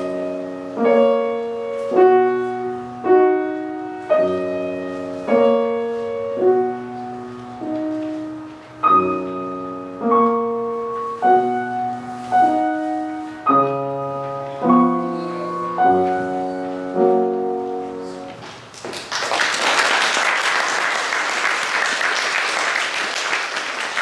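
Grand piano playing a slow, simple piece in separate notes and chords, ending about 18 seconds in. Audience applause follows straight after.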